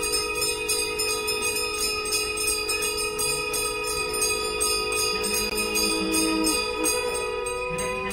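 Several conch shells blown together in long held notes of different pitches, over fast, continuous ringing of temple bells during the Ganga aarti. The conch notes stop together near the end.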